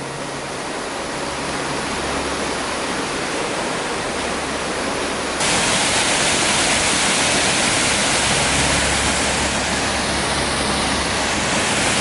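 Partly frozen waterfall: water falling over a rock cliff and plunging through an ice cone into a pool, a steady rushing hiss. It gets suddenly louder about five and a half seconds in.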